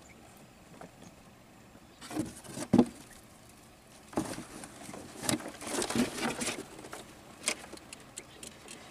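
Net crab trap being handled: rustling of the mesh and knocks, coming in short bursts from about two seconds in, with the sharpest knock near three seconds.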